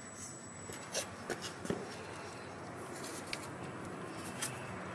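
A few light knocks and rubbing sounds from a hand in a knit cotton work glove handling things close to the microphone, over a steady background hiss.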